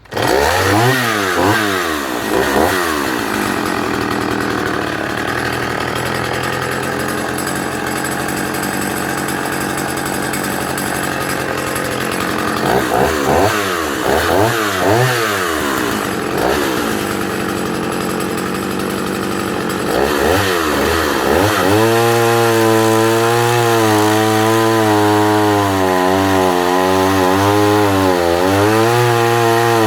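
Partner F55 vintage 55cc two-stroke chainsaw firing up and being revved in quick blips, then running flat out at high revs with a few more blips. About two thirds of the way in its note drops and wavers under load as the chain cuts into a log about 14 inches across.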